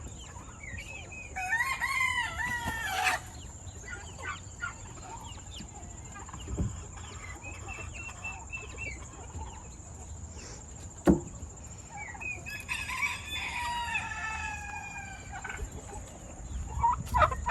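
Chickens clucking around the coop, with a rooster crowing twice: once near the start and again about two-thirds of the way through. A couple of short knocks are heard between the crows.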